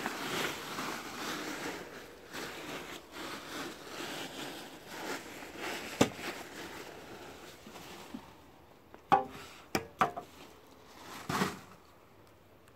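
Digging in packed earth: a steady scraping of a shovel through soil, then a few sharp knocks as the blade strikes the ground about halfway in and again near the end.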